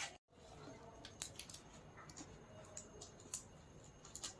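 Faint scattered clicks and rustles of hands working a roll of clear sticky tape and scissors, pressing tape down onto a paper-covered model.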